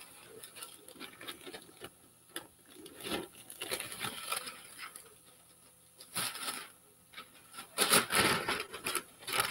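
A sheet of decoupage paper rustling and crinkling as it is handled and laid over a box to measure it, in scattered bursts, loudest about six and eight seconds in.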